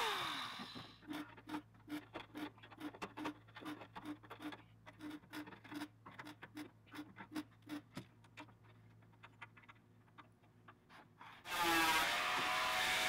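An angle grinder spins down with a falling whine. Then a MIG welder lays a string of short tack welds on sheet-steel body panel, each a brief crackle, two or three a second, thinning out, over a faint steady hum. Near the end the angle grinder starts up again, loud.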